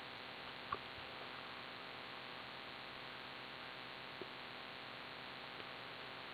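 Quiet, steady background hiss with two faint clicks, one a little under a second in and one about four seconds in.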